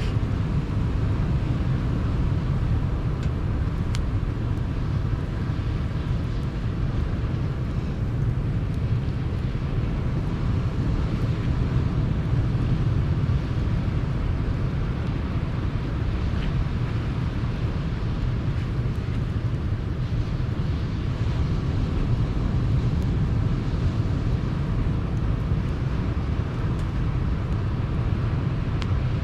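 Sea surf breaking on the shore, a steady low rumble that never lets up, with a couple of faint pops from a campfire.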